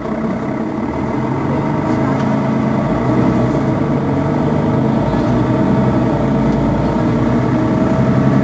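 Diesel engine of a Mercedes-Benz Citaro Facelift city bus idling at a stop, a steady low hum that grows louder over the first few seconds and then holds.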